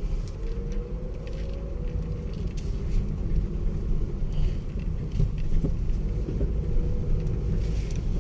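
Car moving along a rough road, heard from inside the cabin: a steady low rumble of engine and tyres, with a faint engine tone that wavers slightly.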